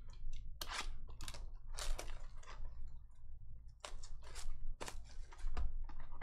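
Hands handling and opening a sealed cardboard trading-card box: irregular crinkling of its plastic wrap, with clicks and taps on the cardboard.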